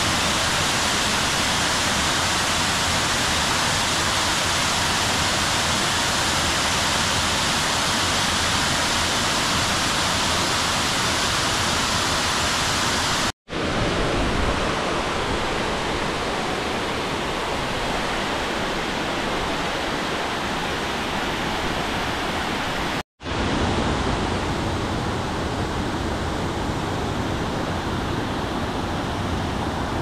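Water rushing steadily over a small cascading stone weir and down a rocky stream. It makes a dense, even rush of noise that drops out for an instant twice, and after the first dropout it sounds a little duller.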